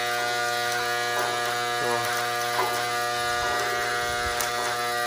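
A small engine or machine running at a steady speed, giving an even buzzing hum, with a few faint knocks.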